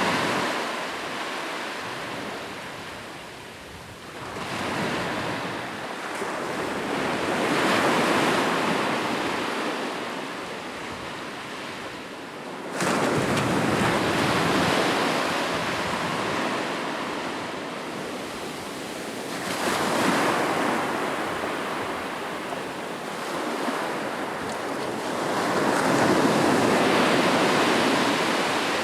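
Ocean surf breaking on a shore: waves swell and wash in, then ebb, every five to seven seconds. One wave breaks abruptly about halfway through.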